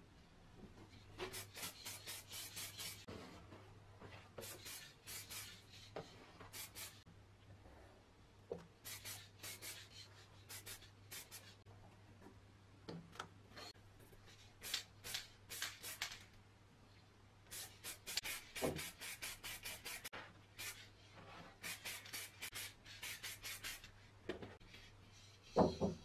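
Aerosol spray paint can in use: runs of quick, rhythmic hissing pulses a few seconds long, with short pauses between them. A single knock near the end.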